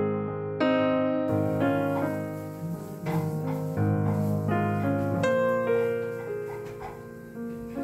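Background piano music: a slow run of single notes and chords, each ringing and fading before the next.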